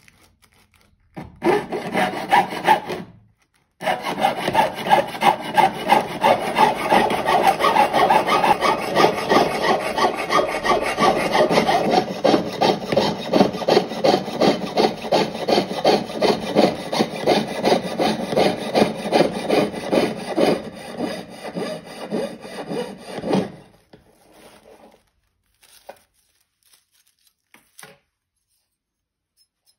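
Jeweller's piercing saw cutting through brass sheet against a wooden bench pin, in quick, even strokes. It stops briefly about three seconds in, then runs steadily until about six seconds before the end, followed by a few faint small taps.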